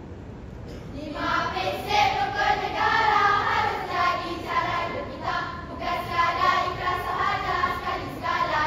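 A group of schoolgirls in a choral-speaking team chanting and singing in unison in a rhythmic, partly sung delivery, coming in about a second in.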